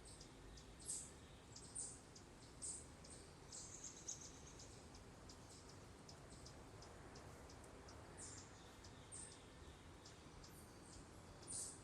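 Faint outdoor bird calls: many short, high chip notes repeated at irregular intervals, a few of them louder.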